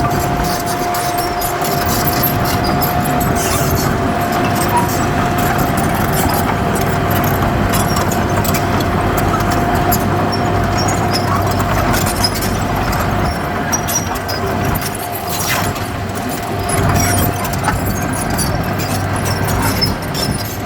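Heavy earthmoving machinery at work: a diesel engine running steadily under a high, steady whine that holds throughout.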